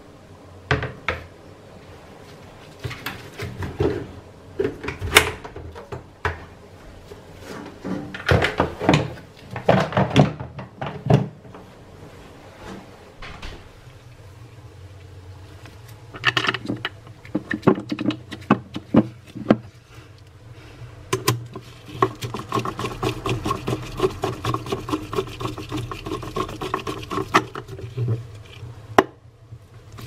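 Plastic knocking and clattering as a washing machine's pulsator is slid down into the tub, then a screwdriver turning the pulsator's centre screw, giving a long fast run of clicks in the second half.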